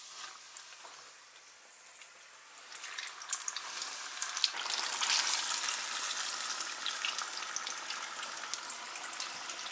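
Battered walleye wings deep-frying in hot oil: a steady sizzle with small crackles, louder from about three seconds in.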